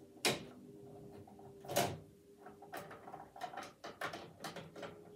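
Hard plastic clicks and knocks from a toy dollhouse's elevator being handled: two louder clatters in the first two seconds, then a run of small quick clicks.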